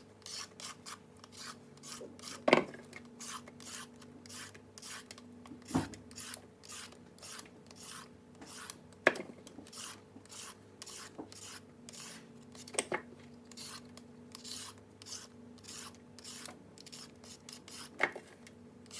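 Handheld vegetable peeler scraping down a raw carrot in quick repeated strokes, with a few louder knocks every few seconds.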